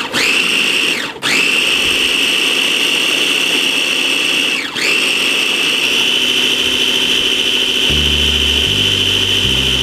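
Small electric food processor running, its motor whining steadily as it blends a guacamole dressing of avocado, lemon juice and onion. Twice the whine drops in pitch and picks back up, about a second in and near five seconds in.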